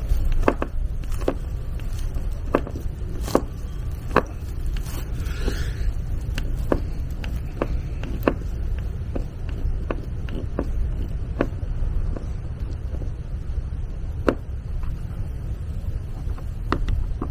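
Phillips screwdriver turned by hand in the screws of a trailer's side-marker light fixture: irregular small clicks, one every second or so, over a steady low rumble.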